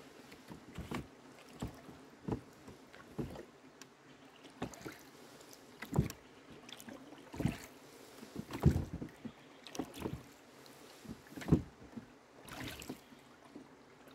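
Rowboat oars working in their oarlocks, a sharp knock with each stroke, repeating about every second and a half.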